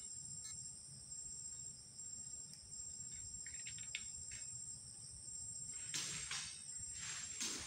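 Steady high-pitched chorus of insects. In the last two seconds there are a few brief noisy swishes.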